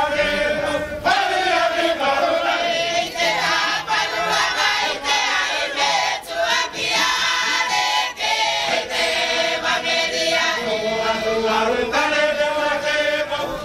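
Mixed choir of men and women singing together in held, harmonised phrases, a chant-like group song with brief breaths between phrases about a second in and near the end.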